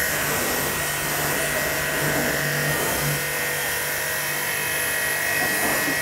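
Aimex D7 1800-watt electric high-pressure washer running steadily, its motor and pump giving a constant hum and whine, while the jet hisses against a car's paintwork and glass.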